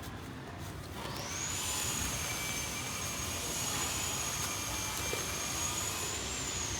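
High engine whine over a rushing noise: it swells in about a second in, holds steady, then starts to fall in pitch near the end, as a passing engine does.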